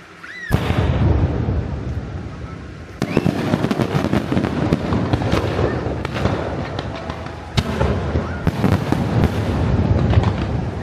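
A fireworks barrage bursting and crackling. It starts suddenly about half a second in, with fresh volleys about three and seven and a half seconds in.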